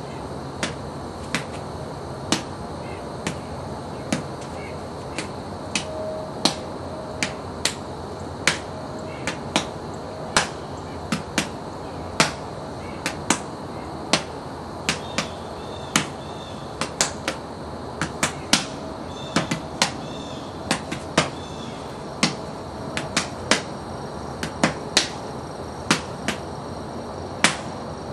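Open-palm and fist strikes on hand-conditioning bags. They come as a run of sharp slaps at an uneven pace, roughly one to two a second.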